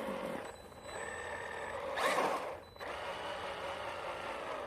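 Electric RC monster truck's motor and drivetrain whining in several short throttle bursts, with the rear wheels no longer driven: a lost rear drive. The ESC is in low-voltage cutoff.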